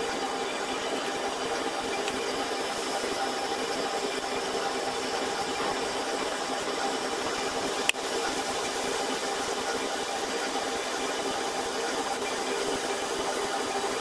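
Steady machine hum with hiss from the microwave ablation equipment running while it heats a block of tissue, with one sharp click about eight seconds in.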